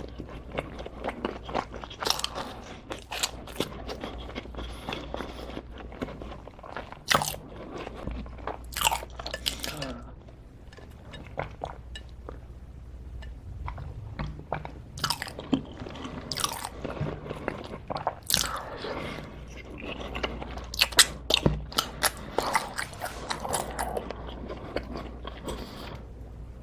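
A person biting into and chewing crunchy food close to the microphone, with irregular sharp crunches and a quieter stretch of softer chewing a little before the middle.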